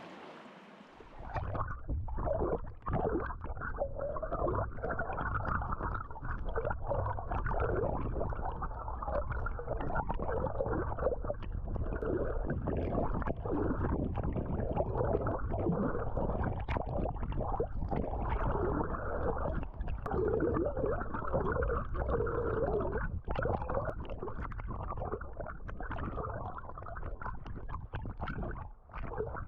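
Muffled, rumbling gurgle of moving water with many small irregular knocks, starting suddenly about a second and a half in and holding steady after that.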